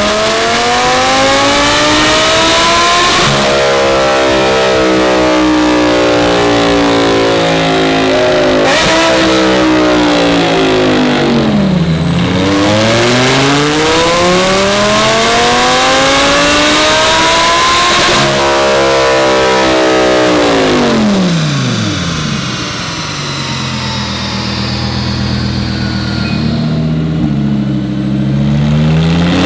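Supercharged Lamborghini Huracán V10 through a titanium center-mount exhaust on a chassis dyno, making two full-throttle pulls. Each time the pitch climbs to a high rev, the throttle is lifted and the revs wind back down. The engine then idles more quietly, with a short rev near the end.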